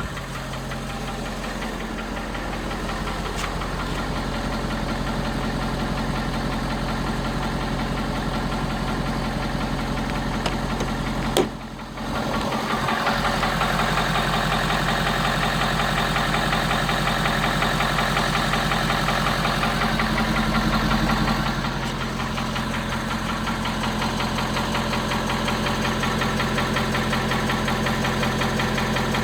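Ford 6.7L Power Stroke V8 turbo-diesel idling cold with a steady, rhythmic knock, a knock heard on cold start that fades as the engine warms. A sharp click about eleven seconds in, with a brief dip in the sound.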